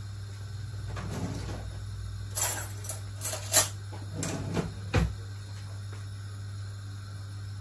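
A glass sugar jar being handled: a short run of knocks and clinks over a few seconds, the sharpest near the middle, over a steady low hum.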